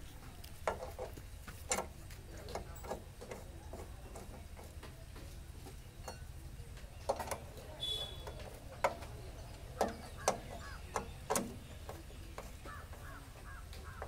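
Irregular sharp metallic clicks and clinks of a steel T-handle box spanner working bolts on a baler's steel side plate, about a dozen spread unevenly through the stretch, over a steady low hum.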